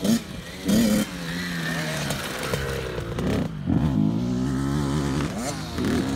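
Small kids' dirt bike engines revving up and down as they ride the track, pitch rising and falling with the throttle, with a loud sharp rev about a second in.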